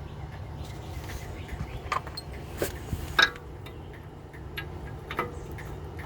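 A few short, sharp metallic clinks of tools and brake parts being handled, the loudest about three seconds in, over a steady low hum.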